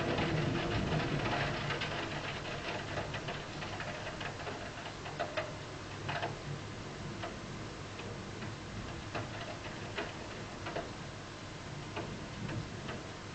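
Steady rain, with drops ticking irregularly close by. A low hum fades away over the first couple of seconds.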